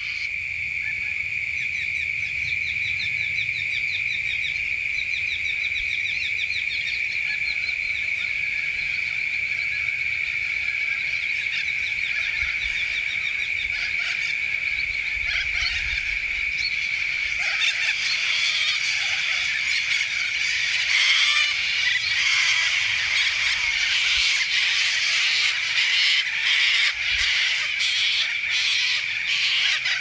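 A flock of corellas calling, harsh screeching calls that build up about halfway through and become loud and dense. Under them runs a steady high-pitched insect drone.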